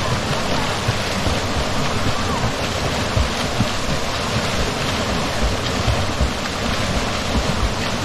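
Mountain stream rushing steadily over rocks, with irregular low thumps underneath.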